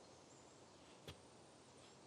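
Near silence: faint background hiss with a single short click about halfway through.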